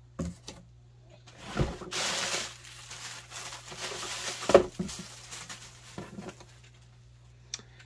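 Plastic packing material rustling and crinkling as hands dig through a cardboard shipping box, with a sharp knock about halfway through. A faint steady low hum runs underneath.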